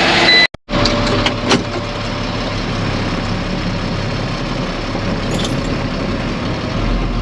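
Heavy diesel engine running steadily, cut briefly to silence about half a second in, with a couple of knocks soon after and a deeper hum coming in near the end.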